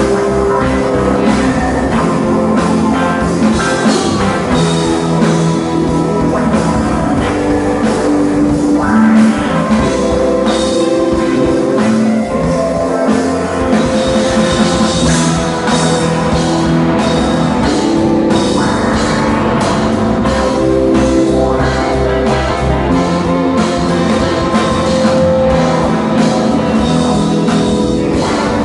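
Live rock band playing loudly: electric guitar, bass guitar, drum kit and keyboard together, with a steady beat of drum hits.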